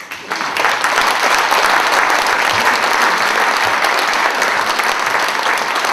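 Audience applauding: many hands clapping, breaking out all at once and then holding steady.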